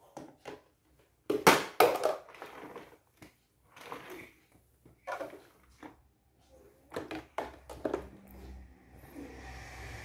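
Plastic baby walker knocking and rattling on a tiled floor: a scattered series of sharp clatters, the loudest about one and a half seconds in, then a low steady rumble from about eight seconds in.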